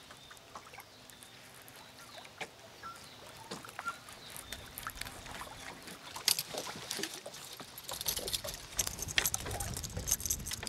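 Scattered faint clicks and taps from handling on a bass boat's deck, over light water sounds against the hull; the clicks grow busier and a low rumble comes in near the end.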